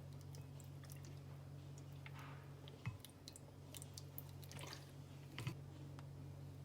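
Someone chewing quietly, with scattered small clicks and a soft thump or two, over a steady low hum.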